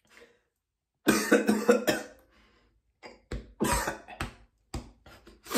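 A man coughing hard in fits: a run of about four coughs about a second in, then several more single coughs. The coughing follows a 'blinker' hit, a vape pen drawn until its light blinks.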